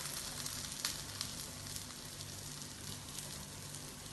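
Urad dal vada batter balls frying in hot coconut oil in a kadai: a steady sizzle with a few scattered small crackles.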